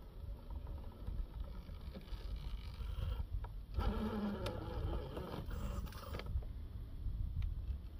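Small electric motor and gearbox of a Traxxas TRX-4 RC rock crawler whining as the truck crawls over rock, louder and more strained from about four to six seconds in. Wind rumbles on the microphone throughout.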